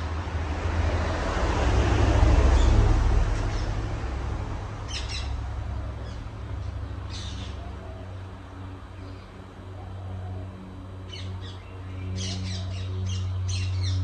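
Casablanca Delta II ceiling fan running, its motor giving a steady low hum with a rush of air that swells about two seconds in, on the motor's replacement bearings. Short high chirps come now and then, and in a quick run near the end.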